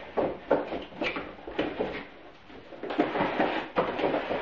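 Cardboard doll box with a plastic window being handled and opened: a run of knocks and scrapes, then denser crinkling and rustling from about three seconds in.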